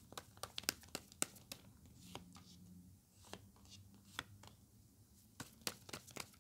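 Tarot cards being shuffled and dealt onto a tabletop: quick papery snaps and taps, thick in the first second or so and again near the end, sparser in between.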